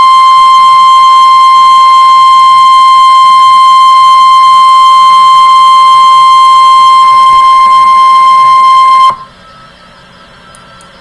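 NOAA Weather Radio warning alarm tone, the single steady 1050 Hz tone that signals an alert is about to be read. It is loud and unchanging and cuts off sharply about nine seconds in, leaving a faint hiss.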